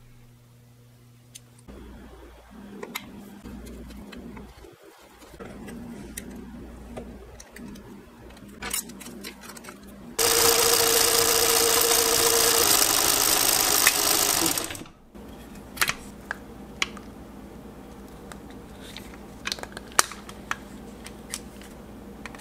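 Pfaff 1245 industrial sewing machine running for about four and a half seconds, starting about ten seconds in, to spin its bobbin winder and wind thread onto a bobbin; it starts and stops abruptly. Before and after it, small sharp clicks and taps come from the winder parts being handled.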